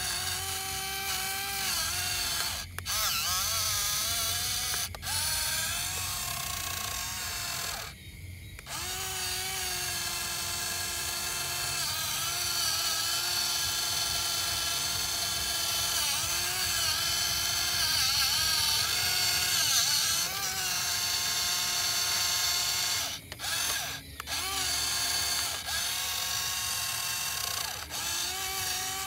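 Small electric motor on a homemade toy tractor whining through its belt drive, its pitch wavering and sagging as the blade pushes dirt. It cuts out briefly a few times.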